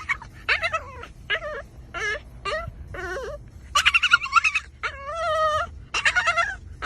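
A dog whining and yipping in a string of short cries that bend in pitch, with one longer, steadier cry about five seconds in.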